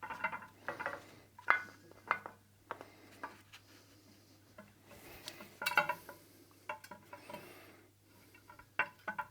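Small metal parts and tools clinking and knocking against each other and the workbench while a precision guideway is handled and assembled, some strikes ringing briefly.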